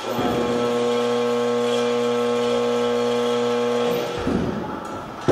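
Electric buzz from a sound-and-light installation's devices: a steady pitched hum for about four seconds that cuts off, followed by a sharp thump near the end.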